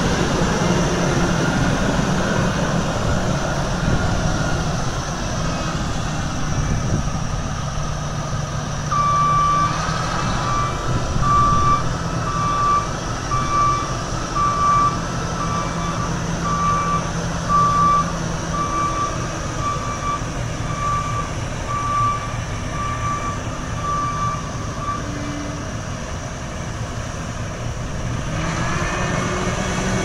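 New Holland CR9.80 combine harvester's diesel engine running steadily as the machine manoeuvres. Its reversing alarm beeps a bit faster than once a second for about fifteen seconds in the middle.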